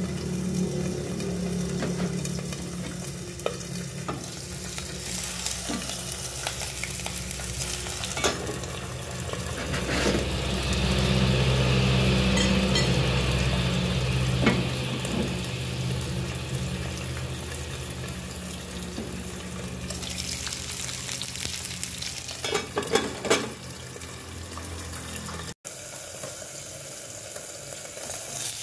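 Salted fish frying in hot oil in a covered pan: a steady sizzle under the lid, louder for a few seconds in the middle, with scattered sharper pops of spattering oil.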